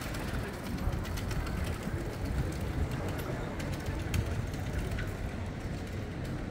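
Urban street ambience: a steady low rumble with many light clicks and taps scattered through it, like footsteps and passing bicycles on cobblestones.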